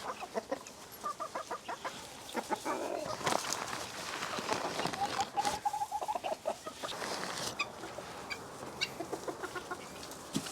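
Chickens clucking: a run of short, quick clucks, with one longer drawn-out call about five seconds in.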